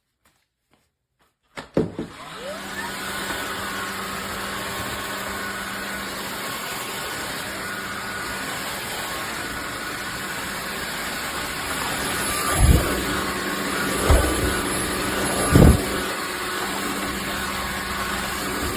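Cordless wet-dry floor vacuum switching on and running steadily with a hum and a high whine. Three dull thumps come in the second half.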